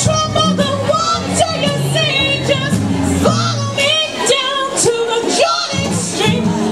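A woman singing into a microphone over amplified backing music with bass and drums. The bass drops out briefly near five seconds in.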